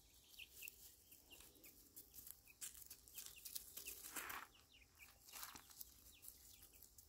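Faint clucking from a hen and many short, high peeps from her young chicks as they forage, scattered throughout, with a slightly louder call about four seconds in.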